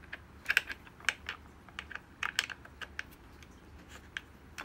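Wobbly office-chair armrest worked by hand, giving a string of irregular sharp clicks and knocks from its loose mounting.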